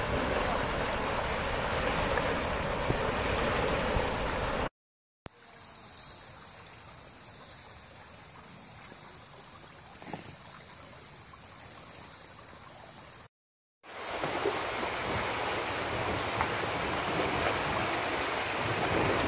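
Shallow creek water rushing steadily over a low weir. After a brief cut to silence it becomes a quieter, gentler flow on calm water, and after a second short cut it is loud rushing water through a rapid again.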